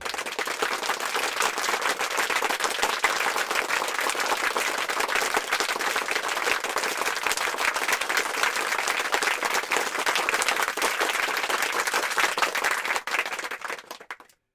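Steady applause, a dense crackle of many hands clapping, which thins and fades out near the end.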